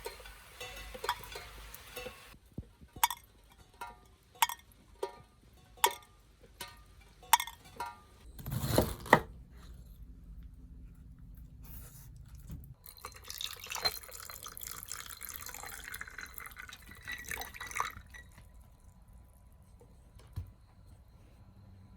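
Water dripping: single drops landing with sharp plinks at irregular intervals, about one every second or two. Just before nine seconds in there is a louder noisy burst, and from about 13 to 18 seconds a soft hiss.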